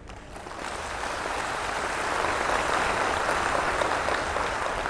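Large audience applauding, the clapping starting about half a second in, building to a peak, then easing slightly near the end.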